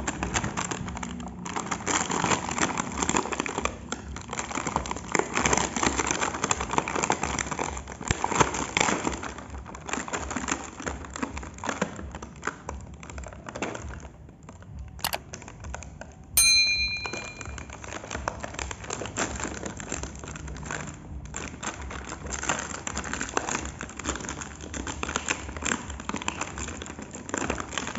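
Plastic toy packaging crinkling and rustling as hands tear open a blister pack and the clear plastic bag around a toy dump truck. There is a sharp click about halfway through, followed by a brief ringing ping.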